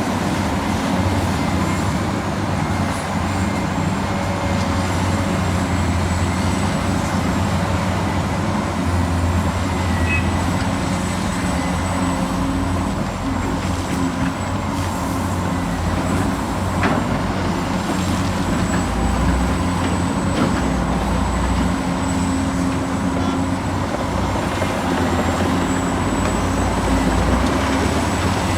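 Radio-controlled scale excavator and dump truck running: a steady mechanical hum with a thin, high, continuous whine, and a few faint clicks.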